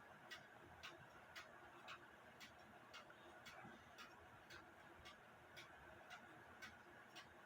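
Embee grandfather clock ticking faintly and evenly, about two ticks a second.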